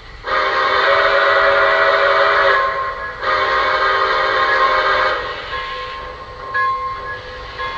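Steam whistle sound from the RailSounds system of a Lionel O-scale Polar Express locomotive (modelled on Pere Marquette 1225): two long blasts of a chime whistle, the second starting about three seconds in, followed by quieter steady tones.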